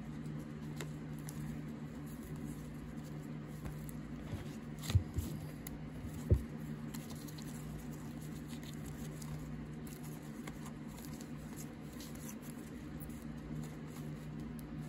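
1990s basketball trading cards, some in plastic sleeves, being flipped through by hand: a soft run of light ticks and rustles as the cards slide over one another, with two louder taps about five and six seconds in, over a steady low hum.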